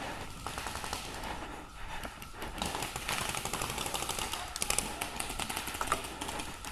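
Paintball markers firing fast strings of shots, a rapid patter of sharp pops that is thickest in the middle and latter part.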